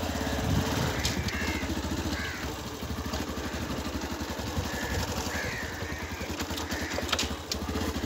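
Motorcycle engine running as the bike is ridden, a steady even putter.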